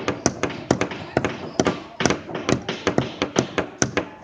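Hammers driving nails into small wooden boxes: sharp, irregular strikes about four a second, some overlapping as more than one hammer works at once.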